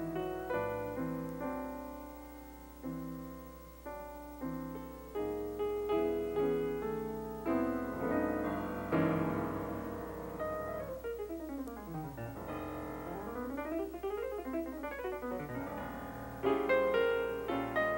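Jazz piano played solo on a grand piano: chords at first, then fast runs sweeping down and up the keyboard in the middle, and louder chords near the end.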